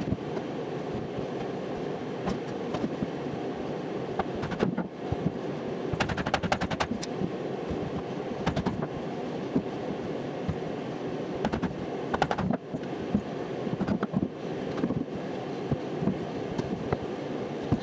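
Irregular sharp knocks and clatter over a steady hum, with quick rattling runs of clicks a third of the way in and again about two-thirds through.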